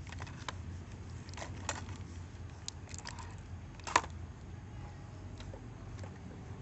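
Scattered light clicks and knocks of a hard plastic toy airliner being handled and dunked in a bucket of liquid mud, with one sharp knock about four seconds in, over a low steady hum.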